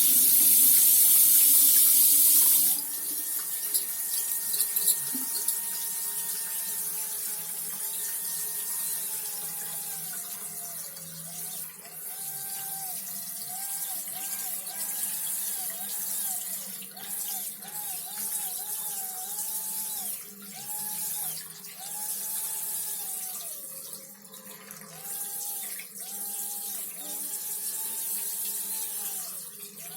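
Running water from a tap with a whistling tone in the plumbing. The water rushes loudly for the first few seconds, then the whistle holds a steady pitch and from about ten seconds in wavers up and down and cuts in and out.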